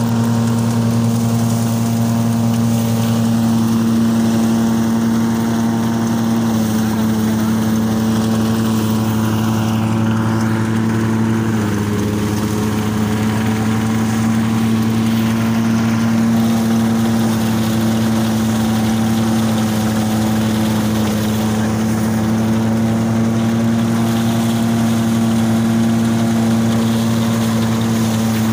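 Small engine running steadily to drive a rice thresher, its pitch dipping slightly about six and again about eleven seconds in as it takes load.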